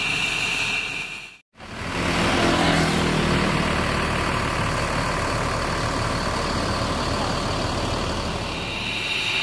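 Mercedes-Benz OH1626 bus's rear-mounted six-cylinder turbo-diesel engine running with a high whine. The sound breaks off abruptly about a second and a half in, then the engine runs on steadily with a fuller, deeper sound.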